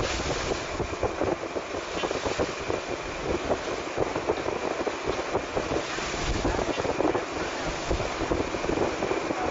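Wind gusting over the microphone aboard a ship under way at sea, a rough, uneven rush with the wash of the sea beneath it.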